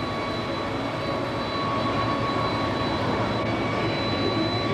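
Airbus A300 airliner's jet engines running at low taxi power, a steady whine of several held high tones over a low rumble, slightly louder about two seconds in.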